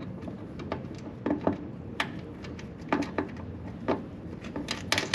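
Irregular light clicks and knocks of small hardware and tools being handled, about nine over five seconds, a few with a brief metallic ring, as screws are fitted by hand during wiring harness installation.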